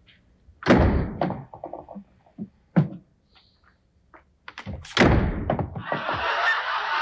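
A series of heavy thuds and knocks, three of them loud, with lighter knocks between them, like furniture or a door being bumped and set down. Near the end a steady rushing noise comes in.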